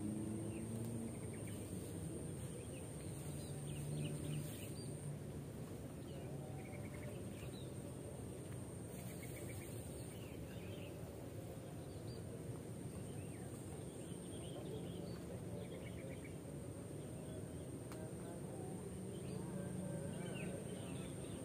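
Outdoor ambience of scattered short bird chirps and a steady high insect drone, over a low steady rumble.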